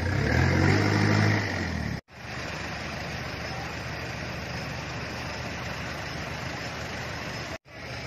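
A motor vehicle's engine running loud with a low hum for about two seconds, then cutting off abruptly into a steady rushing background of road and engine noise, which breaks off briefly near the end.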